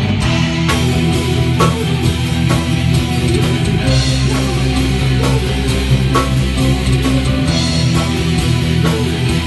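A gothic metal band playing live in a rehearsal room: electric guitars and a keyboard holding sustained low chords over a drum kit keeping a steady beat.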